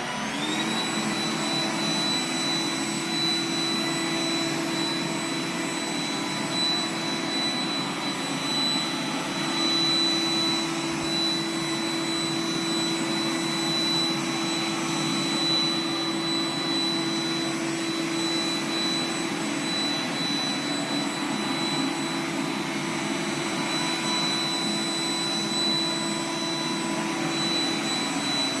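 Roomba 980 robot vacuum running while it picks up confetti: a steady motor whine over a rushing hiss. Just after the start the whine rises in pitch as the suction motor speeds up, then it holds steady.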